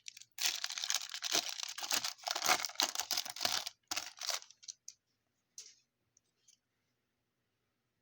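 A trading card pack wrapper being torn open and crinkled for about four seconds, followed by a couple of brief faint rustles.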